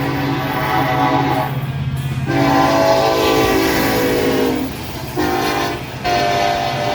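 A train's air horn sounding a chord of several notes in four blasts: long, long, short, then a last long one starting near the end. This is the long-long-short-long pattern a train sounds when approaching a grade crossing.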